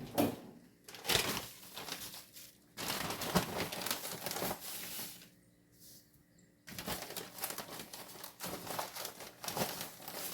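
Intermittent crinkling and rustling of something being handled in stretches of a second or two, with a short pause about two-thirds of the way through.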